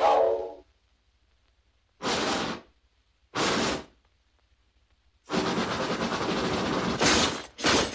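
Animated steam train sound effect. A steam whistle blast ends in the first half-second, then the engine lets out bursts of steam hiss: two short puffs about a second and a half apart, then a longer hiss of nearly two seconds and two quick puffs near the end.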